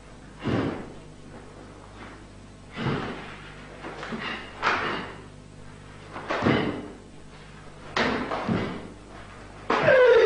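Karate kata performed on a wooden floor: feet stamp and slide and the gi snaps with each technique, in about six sharp bursts a second or two apart. Near the end a short shouted kiai falls in pitch, the loudest sound.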